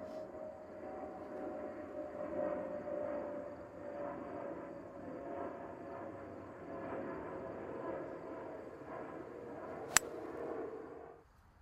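One sharp, loud crack about ten seconds in, typical of a golf club striking a ball, over a steady droning hum that cuts off near the end.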